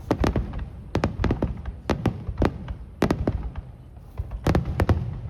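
Aerial fireworks bursting in quick succession, a dense run of sharp cracks and bangs coming in clusters, with a short lull a little before the end.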